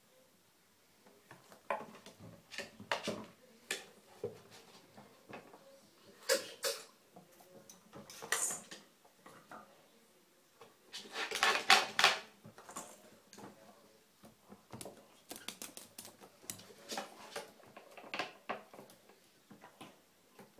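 Ferrets' claws scratching and clicking on a bathtub as they play, with irregular light knocks and clatters. The busiest, loudest flurry comes about eleven to twelve seconds in.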